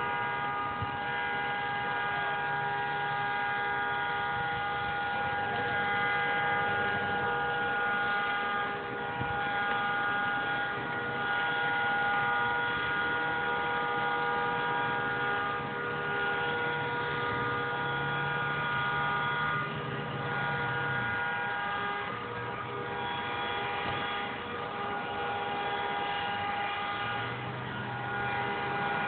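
Cars passing on a road, their rumble swelling and fading a few times, over a steady hum of several held tones.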